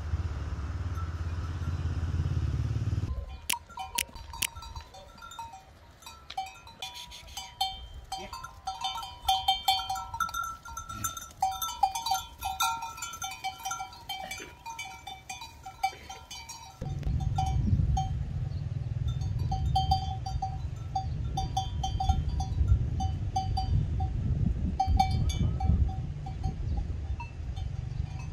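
Bells on a flock of sheep and goats clinking and jingling irregularly as the animals move. A low rumble covers the first few seconds and comes back from about the middle on, under the bells.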